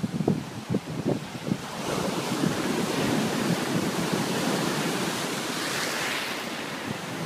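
Stormy sea surf, a steady roar of breaking and rushing waves that builds from about two seconds in. Wind buffets the microphone with low thumps in the first couple of seconds.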